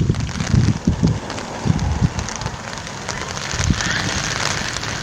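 Rain pattering in many small ticks over a steady hiss, with gusty low rumbling in the first two seconds. Bird calls begin near the end.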